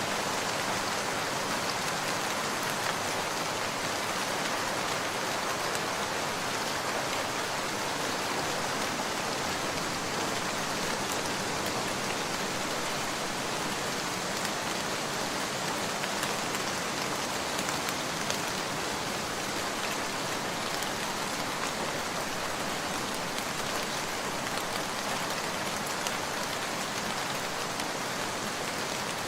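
Steady heavy rain: a dense, even hiss of rain falling on surfaces, with scattered individual drop ticks.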